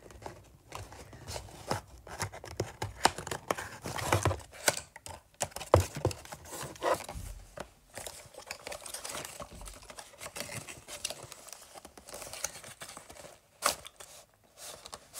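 Cardboard packaging being opened by hand: card and paper tearing, crinkling and rustling, with scattered sharp clicks and taps and a few louder snaps.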